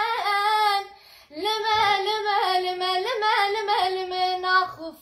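A young woman singing a Kurdish song solo, unaccompanied, in long held notes with wavering ornaments. She breaks for a breath about a second in, then carries on.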